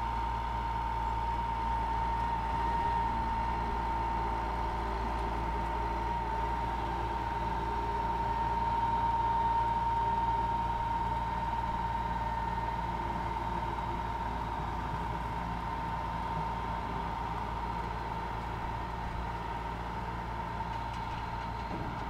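Samart Kaset Yont 'Giant' sugarcane harvester running steadily as it moves across the field. A constant high whine sits over a low engine hum.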